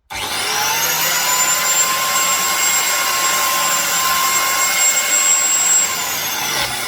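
Biscuit joiner spinning up abruptly and running at a steady high-pitched whine while cutting biscuit slots in the wooden flag pieces. Near the end its pitch drops, then climbs again.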